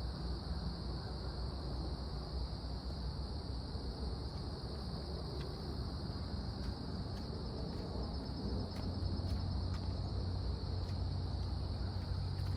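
Insects, crickets or similar, singing in a steady high-pitched drone, over a constant low rumble.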